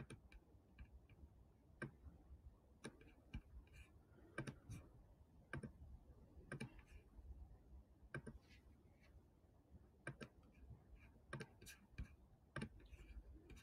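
Faint, irregular clicks of a computer mouse, about one or two a second, over near silence.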